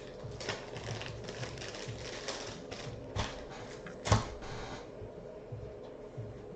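Trading cards being handled on a table: an irregular run of light clicks and taps as stiff cards are flipped and set down, with one sharper knock about four seconds in.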